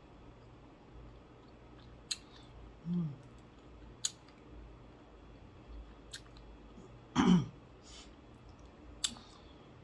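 Close-up eating sounds of a person eating with her fingers: sharp mouth clicks and smacks every second or two, a short hummed vocal sound about three seconds in and a louder throat or vocal sound about seven seconds in, over a low steady hum.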